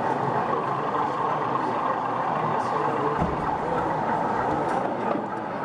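Steady background chatter of many people, a continuous hubbub with no single clear voice, with a short low thump about three seconds in.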